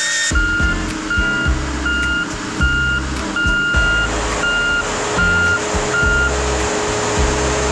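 Heavy-equipment backup alarm beeping, eight even beeps about one and a third a second, one of them held a little longer, stopping about six seconds in.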